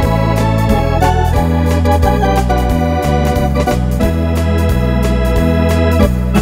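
Wersi electronic organ playing a step fox (quick foxtrot) tune: a melody and held chords over bass notes that change about twice a second, with a steady drum beat.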